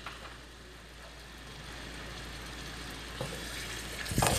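Sliced onions sizzling in hot oil in a stainless steel pot, a steady even hiss. Near the end a spatula starts stirring them, with a brief louder knock and scrape against the pot.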